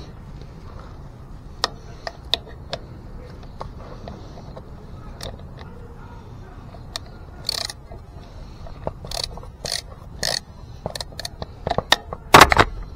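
Handling noise from hands gripping and adjusting the camera right at the microphone: scattered clicks and knocks, with a loud cluster of bumps and rubbing near the end.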